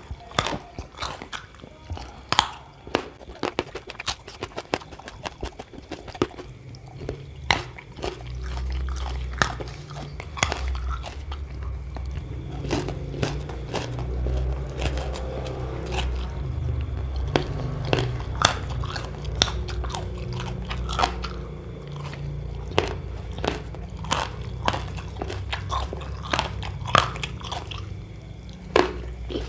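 Close-miked biting, crunching and chewing of crisp food such as raw vegetables and crackers, in many sharp crunches. A low steady hum comes in about seven seconds in and fades near the end.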